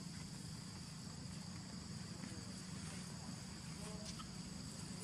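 Steady high-pitched insect drone over a low background rumble, with a couple of short faint chirping calls about four seconds in.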